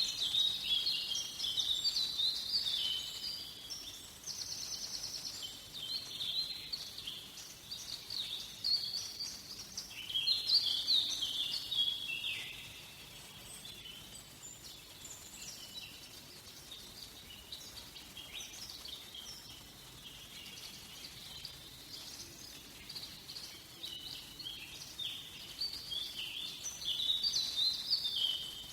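Several songbirds singing, with overlapping quick chirping and trilling phrases. The song is dense for the first dozen seconds, thins to scattered notes for a while, then picks up again near the end.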